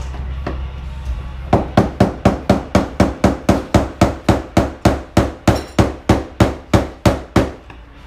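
Hammer driving a flat tool against a truck's fuel pump lock ring on the fuel tank to knock the ring loose. It is a fast, even run of about twenty metal strikes, three to four a second, starting about a second and a half in.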